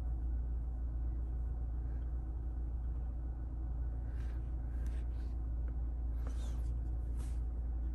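Steady low hum of a Toyota Camry idling, heard from inside the cabin. A few faint rustles come near the end.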